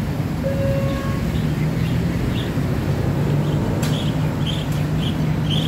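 Steady low rumble of road traffic engines at a railway level crossing, with a short steady tone near the start and small birds chirping repeatedly from about a second and a half in.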